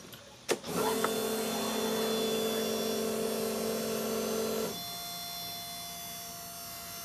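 A click as the ignition is switched on, then the car's electric fuel pump runs with a steady whine for about four seconds and stops abruptly: the ECU priming the fuel pump at key-on. A fainter steady hum continues after it stops.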